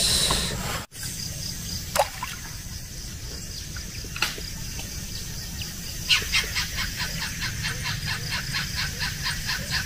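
Riverside forest ambience: a short splash at the start, then a faint steady high hum. From about six seconds in, an animal calls in a fast, even run of chirps, about five or six a second.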